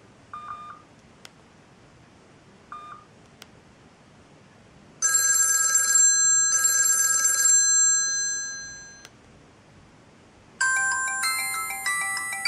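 Samsung SGH-i560 mobile phone playing ringtones through its loudspeaker. Two short beeps and a few soft clicks come first, then a ringtone of two trilling bursts like a telephone bell, fading out about nine seconds in. Near the end a melodic ringtone of quick notes begins.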